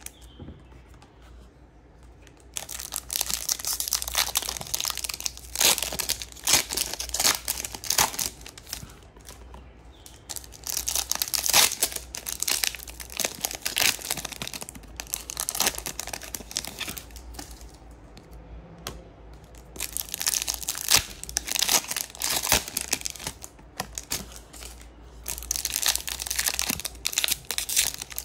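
Foil trading-card pack wrappers crinkling and tearing as Topps Chrome packs are opened and handled, in several bursts of rustling after a quiet first couple of seconds.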